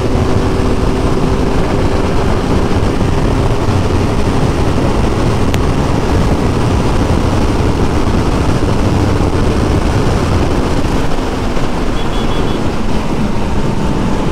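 Heavy wind rush over the microphone of a Kawasaki Z900 ridden at around 180–210 km/h, with the inline-four engine's drone underneath. Near the end the engine note falls in pitch as the bike slows down.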